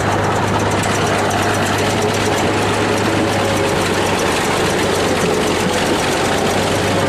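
Engines running steadily at an even pace, with a low hum and a fast, fine clatter throughout.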